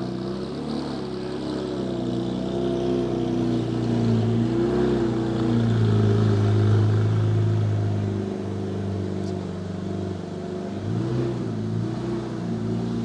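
Porsche 718 Cayman GT4 RS's naturally aspirated 4.0-litre flat-six, breathing through a Fi valved muffler and catless downpipes, running at low revs. It swells gently in loudness to a peak about six to seven seconds in, then eases off.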